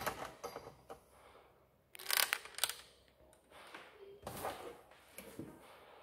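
Handling noise from power cords and the recording phone on a desk: a few short rustles and knocks, the loudest cluster about two seconds in.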